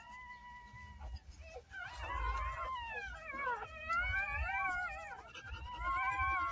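Newborn puppies crying with high, drawn-out squeals that arch up and down in pitch, several overlapping in the middle.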